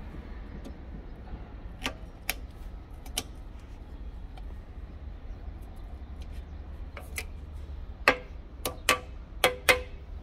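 Sharp metallic clicks of circlip pliers and a steel retaining ring against a water pump's bearing housing, each with a short ring. A few come scattered, then a quicker run of about five near the end.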